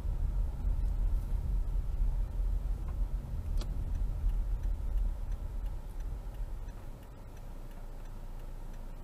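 Low rumble of a car driving slowly, heard from inside the cabin, settling to a quieter steady idle hum about seven seconds in as the car comes to a stop at a stop sign.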